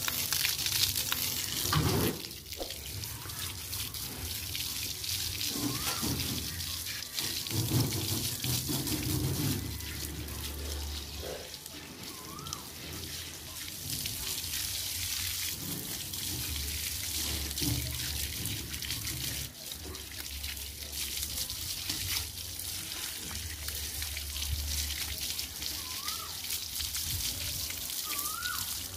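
Water spraying from a garden hose onto a wet dog and the concrete beneath it: a steady hiss of spray and splashing.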